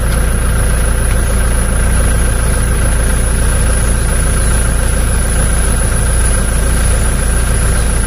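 Car engine idling with the air conditioning switched on, heard from inside the cabin: a steady low drone with an even rush of air from the vents.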